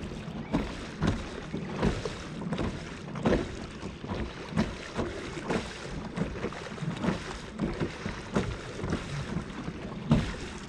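Sea kayak being paddled: an uneven run of water splashes and slaps against the hull, about one a second or a little faster, over wind on the microphone.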